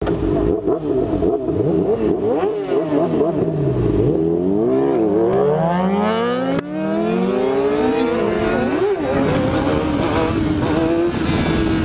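Several sport-bike engines, among them a Kawasaki Ninja 636 inline-four, revving in overlapping blips at a standstill, then pulling away hard with the pitch climbing through the gears. The climb breaks off briefly at a gear change about six and a half seconds in, and the engine settles to a steadier note near the end.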